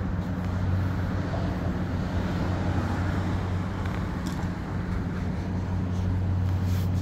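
Steady street background noise with a constant low hum.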